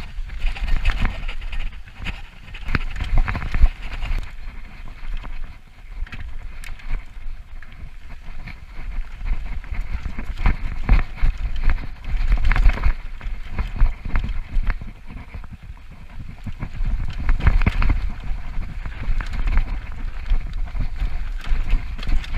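Mountain bike riding fast down a dirt trail: tyres on loose dirt and gravel and the bike rattling and knocking over bumps, with heavy wind rumbling on the microphone. The sound swells and eases with the terrain, loudest around the middle and again near the end.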